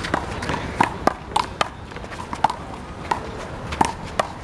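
A rubber one-wall handball (the big blue ball) being smacked back and forth in a rally: about nine sharp, irregularly spaced hits of hand, wall and pavement, each with a short hollow ping.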